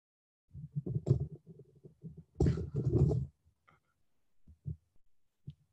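Muffled bumping and rubbing noise from the video-call device's microphone as it is picked up and moved, with a louder scraping stretch about two and a half seconds in, then a few faint knocks.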